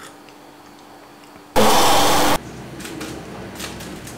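A sudden, very loud burst of hiss-like noise, lasting under a second and starting and stopping abruptly, followed by faint clicks and taps.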